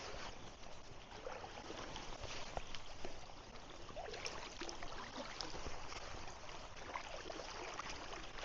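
River water trickling and lapping, with many small scattered clicks and light splashes around the paddle craft.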